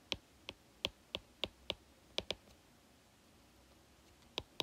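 Light, sharp taps of a stylus tip on a tablet screen during handwriting. There are about eight irregular clicks in the first two and a half seconds, a pause, then two more near the end.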